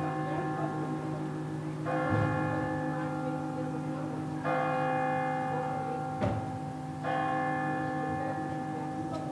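A church bell tolling slowly, struck three times about two and a half seconds apart, each stroke ringing on over the hum of the one before. Two short knocks sound in between.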